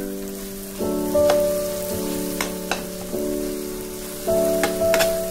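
Greens sizzling as they are stir-fried in a wok, with a metal spatula clicking and scraping against the pan several times. Soft background music with held chords plays over it.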